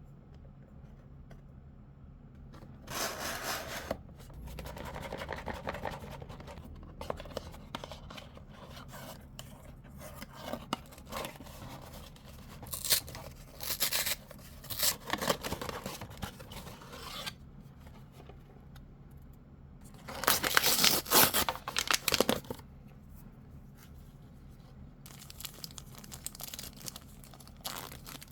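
Packaging being handled and opened by hand: rustling, rubbing and tearing of wrapping and box in irregular bursts, the loudest about twenty seconds in.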